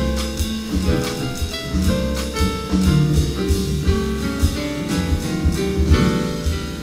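A jazz trio playing live: plucked upright double bass and a drum kit with ride cymbal keep time under a running line of single melody notes.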